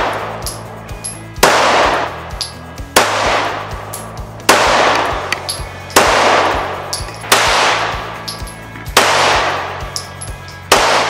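9mm pistol fired at a steady pace, about one shot every second and a half, seven shots in all, each followed by a ringing, echoing tail. Background music plays underneath.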